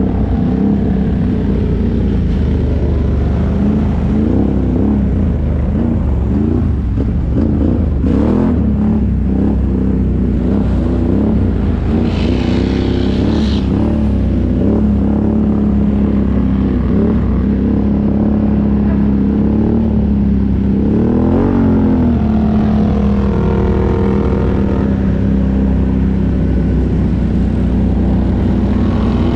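Can-Am ATV engine running under way, its revs rising and falling with the throttle, with a brief rush of noise about twelve seconds in.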